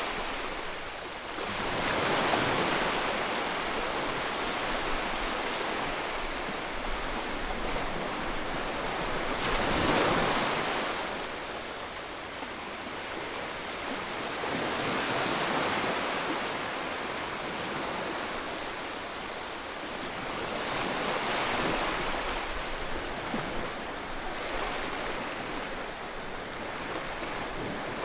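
Steady rushing of water during a flood, swelling louder and easing every few seconds.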